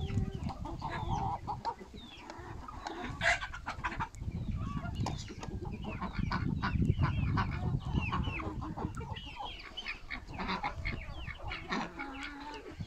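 Poultry flock calling: chickens clucking, with many short, overlapping calls throughout and a steady low noise underneath.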